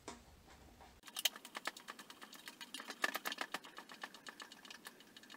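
Hand screwdriver driving a wood screw through the toolbox's wooden end board into the wooden dowel handle, to stop the handle from spinning. A quick, irregular run of small clicks starts about a second in.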